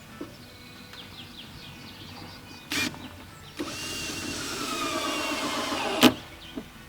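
Power drill driving a screw, its motor pitch falling steadily as the load builds over about two and a half seconds, then a sharp click as it stops. A short, sharp noise comes shortly before it.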